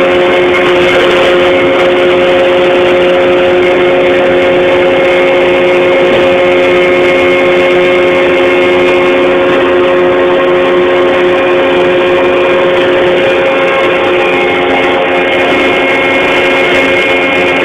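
Atlas Copco Boltec rock-bolting rig running steadily: a loud, even machine drone with several fixed tones that hold a constant pitch, with no revving or stopping.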